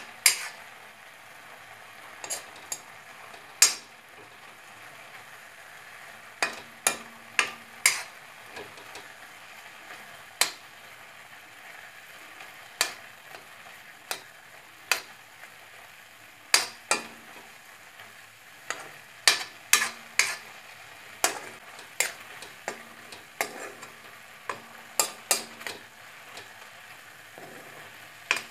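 A metal spatula stirring grated carrots in a steel pan, scraping and knocking against the pan at irregular intervals, over a faint steady sizzle of the carrots frying.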